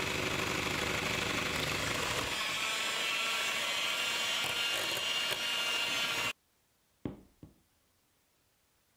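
Electric hand mixer running steadily, its twin beaters whisking cake batter in a glass bowl; it cuts off suddenly about six seconds in. Two short knocks follow about a second later.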